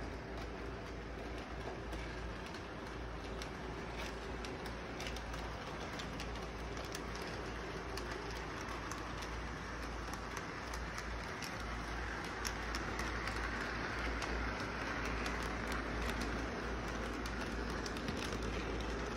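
Electric model train running on its track: a steady rolling hum with a low electrical buzz under it and frequent sharp clicks from the wheels and rail joints. It grows louder over the second half as the cars pass close by.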